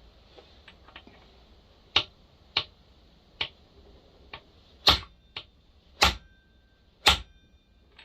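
Irregular hammer taps on metal setting a spark plug thread repair insert in a McCulloch 1010 chainsaw cylinder, struck hard to flare the insert out. A few light taps come first, then about eight sharp blows, the last three the hardest and leaving a short metallic ring.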